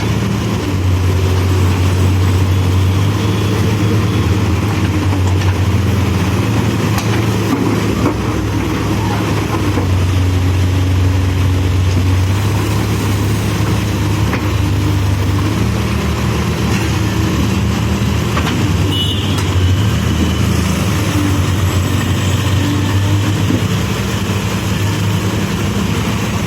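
Diesel engine of a CASE backhoe loader running steadily, its pitch stepping up and down every few seconds as the machine works, with a few brief knocks.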